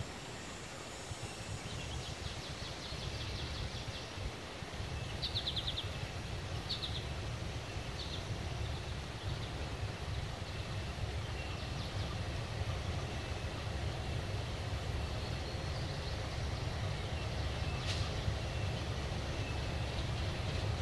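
Diesel freight locomotive approaching slowly, its engine a low steady rumble growing gradually louder. Birds chirp and trill over it in the first half.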